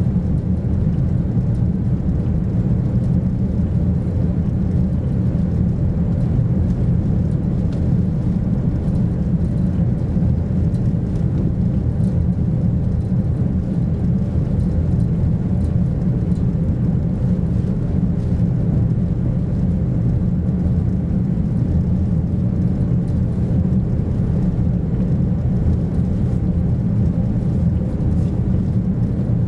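Steady low rumble and whir of a jetfoil's gas-turbine waterjet propulsion, heard inside the passenger cabin while the craft cruises at speed.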